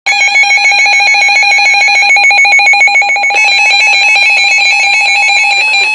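Weatheradio Canada warning alarm tone: one loud, steady high-pitched tone with a fast buzzy flutter, the attention signal that opens a severe thunderstorm warning broadcast.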